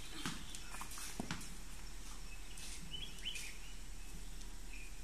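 Outdoor ambience of a few footsteps on paving stones, with scattered short bird chirps.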